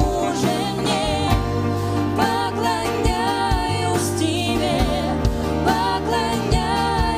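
Live worship band playing with singing: sustained bass notes, a steady drum beat and sung melody lines.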